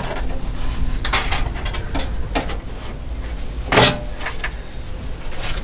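A few scattered knocks and scrapes as a two-row aluminum radiator with plastic tanks is worked down into the engine bay and seated in its mounts, the sharpest knock a little before four seconds in, over a steady low rumble.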